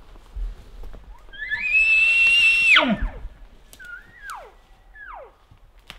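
Elk bugle: a whistle that climbs to a high note, holds it for about a second, then breaks sharply down into a low grunt, followed by two shorter falling calls near the end.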